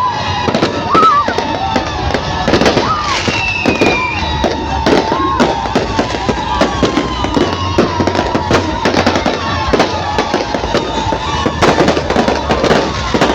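Fireworks going off in a rapid, continuous barrage of bangs and crackles, with whistling tones sliding and falling over the top.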